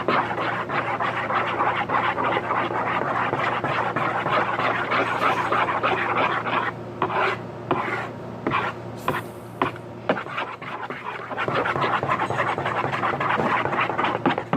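Spoon stirring glue and food colouring in a bowl, a fast run of scratchy scraping strokes that slackens for a few seconds midway, then picks up again.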